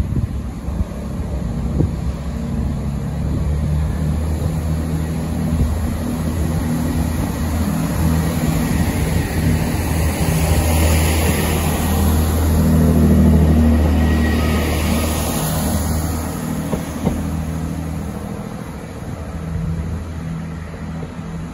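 GWR Turbo diesel multiple unit running past close by and on down the line: a low diesel engine drone with wheel-and-rail hiss. It is loudest as the train draws alongside just before the middle, the drone dropping away about three-quarters of the way through, then fading as the train moves off.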